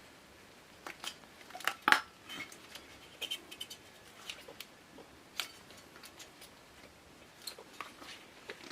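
Small metal lantern parts clicking and clinking as they are handled and set down, irregularly, with a sharper clatter about two seconds in.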